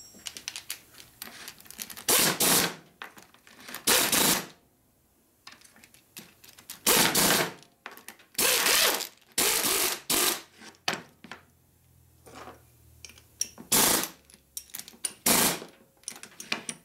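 Bench work on rocker arm parts: scattered metal clicks and clinks between about seven short bursts of rushing noise, each about half a second long.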